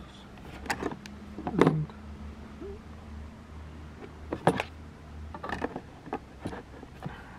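Handling clicks and knocks in a hard moulded plastic tool case: an angle grinder, its metal spanner and side handle being picked up and set down in the case, about six sharp knocks spread over the seconds, with a low steady hum underneath.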